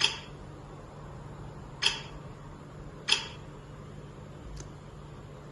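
Three sharp, short clicks, one at the start, one about two seconds later and one a little over a second after that, each ringing briefly, with a fainter tick later on, over a steady low hum.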